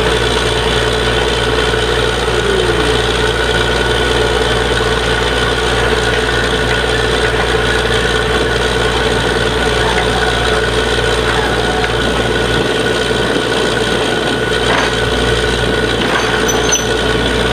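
Borewell drilling rig running steadily: a loud, even machine drone with constant pitched tones over a deep hum.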